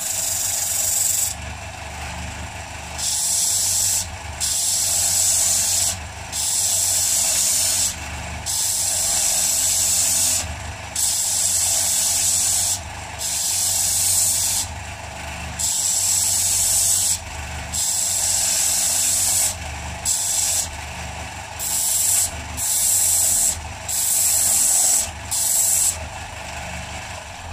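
Electric disc sander running steadily, with a coarse rasping hiss each time a morta (bog oak) pipe bowl is pressed against its coarse-grit disc, about fifteen contacts of one to two seconds each with short breaks between: rough-shaping a pipe.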